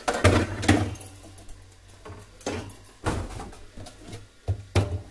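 Cardboard box rustling and scraping as a glass-topped infrared cooktop is slid out of it by hand, in several separate scrapes and rustles.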